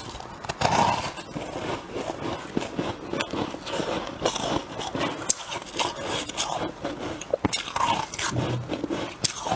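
Freezer frost being bitten and chewed close to the microphone: a dense run of small crunches and scrapes.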